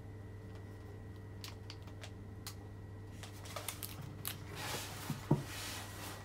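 Steady low hum from a Vaillant ecoTEC plus 831 gas combi boiler in its start-up stage, with scattered light clicks. A rustle comes near the end, and a single thump about five seconds in is the loudest sound.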